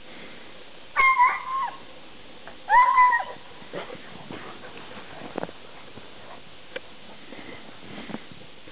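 A dog gives two short, high-pitched yelping whines about two seconds apart, the kind a dog makes while playing, followed by faint taps and rustles.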